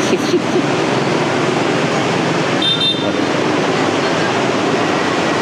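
Steady noise of busy city street traffic, with a brief high horn beep about two and a half seconds in.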